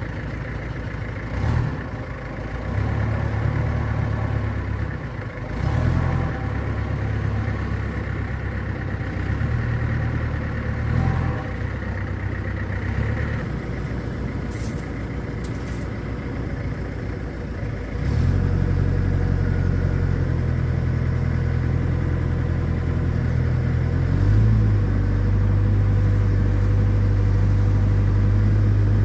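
Vintage truck's engine running, its speed and load shifting several times, then louder and steadier over the last third.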